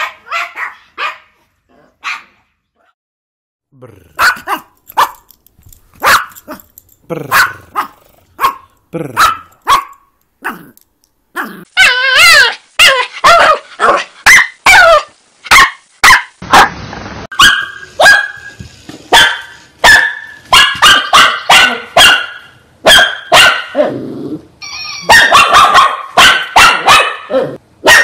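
Yorkshire terrier barking in short, spaced barks, with a pause about three seconds in. About twelve seconds in, a Shih Tzu takes over with loud, rapid barking in quick runs.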